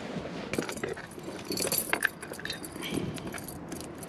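Light metallic clinks and jangling from fishing pliers and their coiled lanyard being handled while unhooking a crappie, with scattered small clicks throughout.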